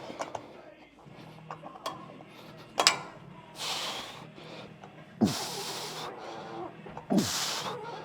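A man exhaling forcefully through a set of leg-machine reps: three sharp, hissing breaths about every two seconds from the middle on, the later two with a short falling grunt, after a few clicks of the gym machine at the start.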